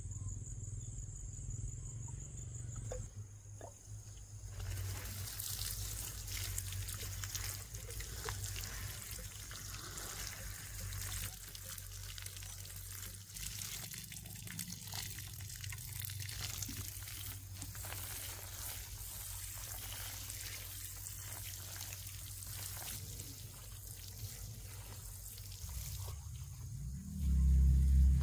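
Water running and splashing, with a steady crackle, from about five seconds in. Insects chirp at the start, and a loud low rumble comes in just before the end.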